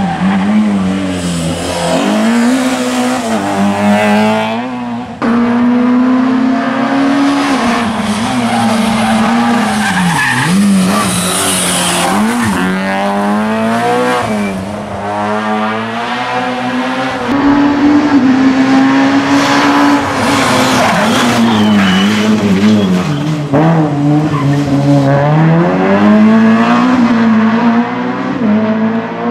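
Peugeot 106 rally car's four-cylinder engine revving hard, its pitch climbing and dropping repeatedly through gear changes and corners, with tyres squealing at times. The sound breaks off abruptly a few times where different passes are cut together.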